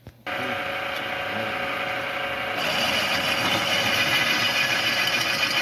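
Lathe motor switched on a moment in and running steadily with a hum of several tones; about halfway through the sound turns louder and higher-pitched.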